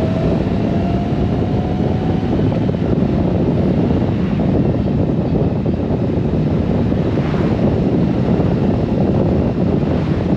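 Heavy, steady wind buffeting the camera microphone on a Honda Gold Wing motorcycle riding at road speed, with engine and road noise under it. A faint engine note rises slowly in the first couple of seconds.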